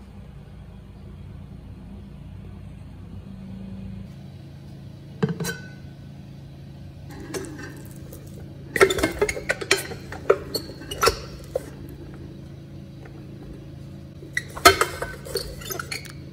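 Wooden rice paddle knocking and scraping against the stainless steel inner pot of a rice cooker as cooked brown rice is fluffed, in two bursts of clatter, with a single clink about five seconds in.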